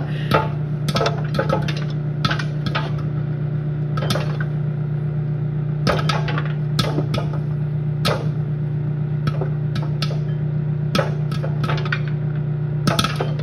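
Popcorn kernels popping in an open bowl inside a running microwave oven: about twenty sharp, irregular pops over the oven's steady hum.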